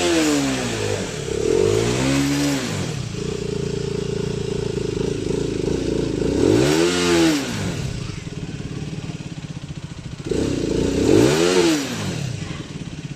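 Aprilia CR150 motorcycle engine revved with the throttle: the revs climb and fall back four times, with a few seconds held high in the middle. The revs are pushed to the range where the owner reports a whine like an electric drill coming from the bike.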